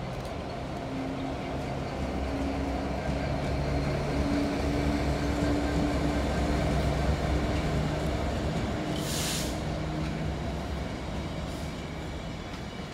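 GB Railfreight Class 66 diesel locomotive, with an EMD two-stroke V12 engine, passing under power with a train of hopper wagons. Its low, steady engine drone blends with the rumble of the wagons rolling by, loudest in the middle, with a brief hiss a little after halfway.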